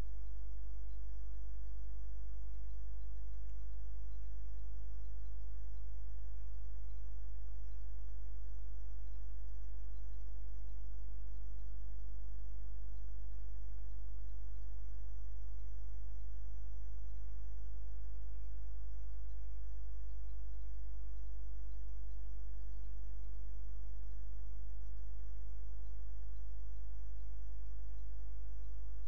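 Steady electrical mains hum, a loud low drone with unchanging overtones, that does not vary.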